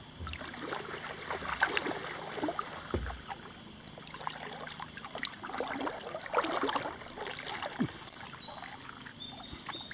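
Paddle strokes from a small paddled boat: water splashing and dripping in uneven clusters of small splashes.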